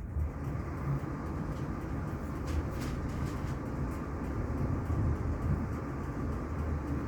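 Passenger train running, heard from on board as a steady low rumble, with a few faint clicks from the track about two and a half seconds in.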